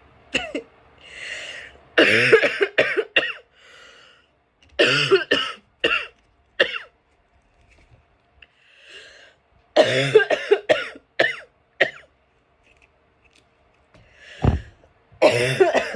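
A person coughing in four fits of several quick coughs each, with breaths drawn in between, set off by inhaling chhinkni sneezing powder.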